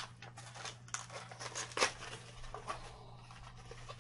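Small cardboard product box being opened and handled: irregular rustling, scraping and light clicks of the packaging, the sharpest a little under two seconds in.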